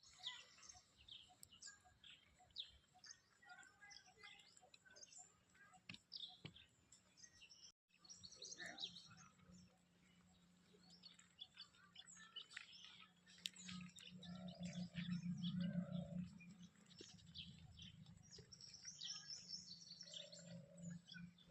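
Many birds chirping and calling, a dense scatter of short high chirps. A faint low hum swells up briefly a little past halfway.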